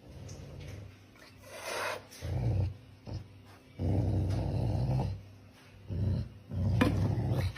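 A domestic cat growling low in four bursts, the longest about a second.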